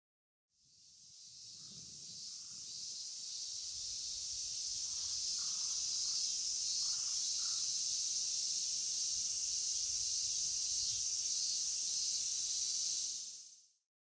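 Steady, high-pitched chorus of singing cicadas, fading in over the first few seconds and fading out near the end.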